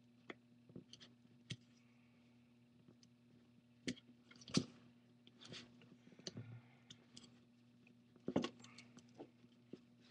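Faint, irregular clicks and scrapes of an iPad opening tool prying under an iPad 3's glass front panel, working it loose from its adhesive. A steady low electrical hum runs underneath.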